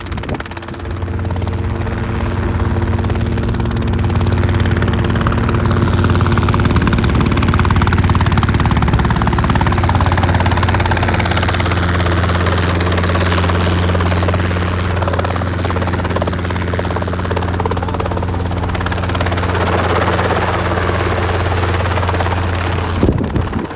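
Helicopter running: a loud, steady engine and rotor drone with a strong low hum that drops away near the end.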